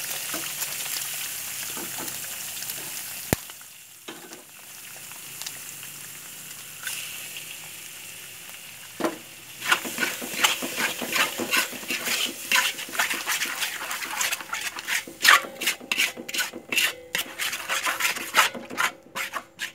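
Eggs sizzling in hot oil and spice paste in a steel wok, with a single sharp tap a few seconds in. From about halfway, a metal spatula scrapes rapidly and repeatedly against the wok as the eggs are scrambled.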